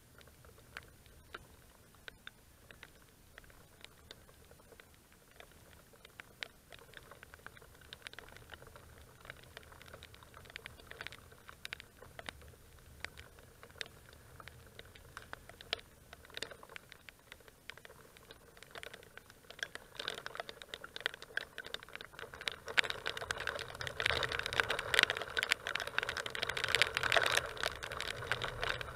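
Rain falling on the camera: irregular small ticks and patter that grow denser and louder over the last several seconds.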